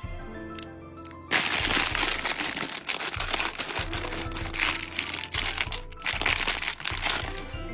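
Packaging crinkling and rustling as it is handled and opened, starting sharply about a second in and stopping shortly before the end, over background music.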